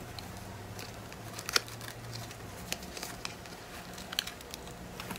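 Small paper packet being handled and unwrapped, with faint rustling and a few sharp crinkles and clicks scattered through.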